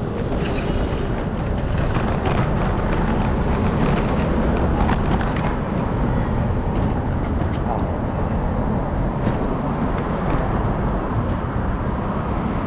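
Steady city street noise: traffic on the road and a low rumble of rolling along the pavement.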